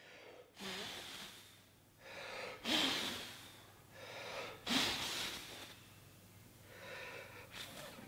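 A man blowing hard through pursed lips: four breathy puffs of air, one every two seconds or so, to make a small fabric sock cape flap.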